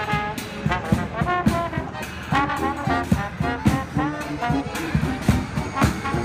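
Background music: a brass melody of trombone and trumpet over a steady beat.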